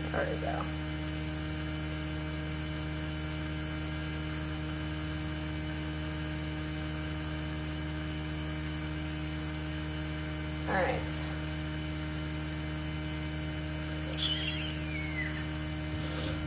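Steady electrical mains hum with many overtones, unchanging throughout. A few brief faint sounds break through: one at the start, one about eleven seconds in, and a short falling whistle-like sound near the end.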